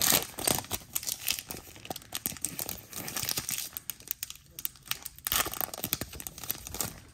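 Foil wrapper of a 2022 Select Football trading-card pack being torn open by hand, crinkling and ripping in quick, irregular crackles.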